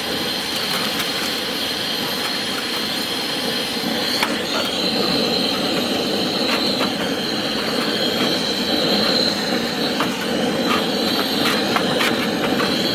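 Propane-fed Trangia gas burner running with a steady hiss under a billy can of water, with a few light metallic clicks as a folding metal windscreen is set around the stove.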